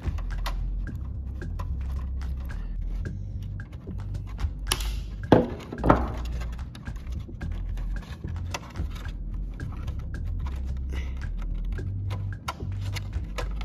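Small metallic clicks and taps of pliers and a thin wire control rod being worked against plastic parts, with two sharper clicks a little past halfway, over low background music.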